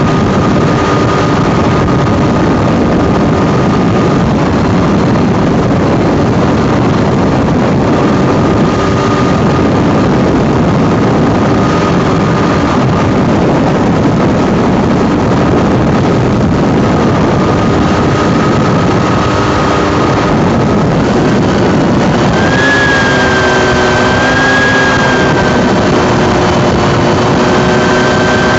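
Open-cockpit ultralight aircraft's engine running steadily under loud wind rush on the approach to land. The engine note changes about two-thirds of the way through.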